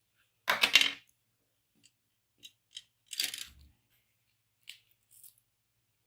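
Hard plastic anatomy-model pieces clattering against each other and the table. There are two louder clatters, about half a second in and about three seconds in, with a few light clicks between them.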